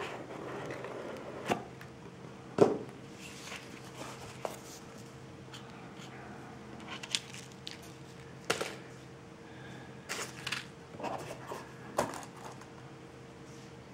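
Cardboard gift box handled by hand as its lid is lifted off and set aside, giving scattered taps, knocks and rustles, the loudest about two and a half seconds in. A faint steady hum runs underneath.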